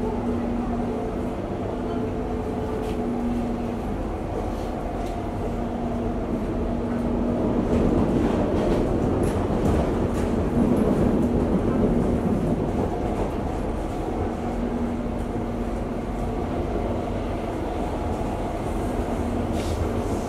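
Running noise inside a Singapore MRT train carriage: a steady rumble with a hum that comes and goes. It grows louder about eight seconds in and eases back a few seconds later.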